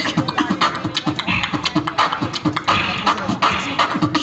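Beatboxing into a handheld microphone, amplified through a stage PA: fast vocal percussion of sharp clicks and low thumping beats in a quick, continuous rhythm.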